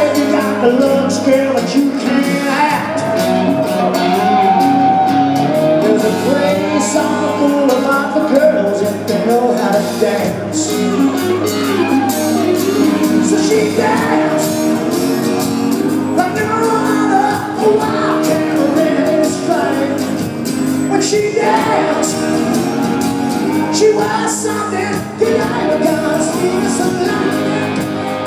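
Live hard rock band: a male lead vocalist sings over strummed acoustic guitar, electric guitars and bass.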